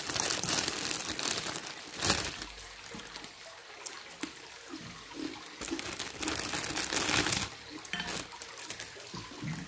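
Crisp kerupuk crackers being bitten and chewed, in loud crunching spells at the start, around two seconds in and again near the end, with softer chewing between.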